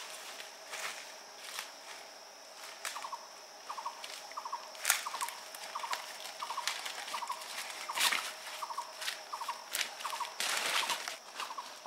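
Footsteps crunching and rustling through leaf litter and undergrowth, with scattered twig snaps and a louder rustle of leaves near the end. Behind them an animal repeats a short call of a few quick notes a little more than once a second, over a steady high whine.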